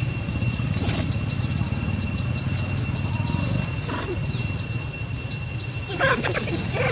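A young long-tailed macaque gives a short squeal near the end, its pitch bending down, during a chase. Behind it runs a steady, fast high-pitched pulsing chorus of insects over a low rumble.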